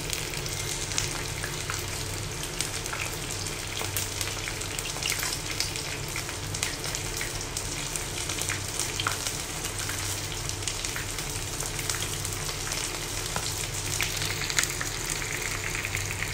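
Chicken drumsticks frying in hot oil in a skillet: a steady sizzle with many small crackles and pops. The chicken is nearly cooked.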